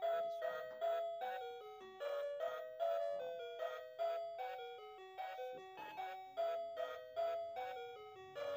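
Background music: a quick, bouncy melody of short ringing notes, each struck sharply and fading, about three notes a second.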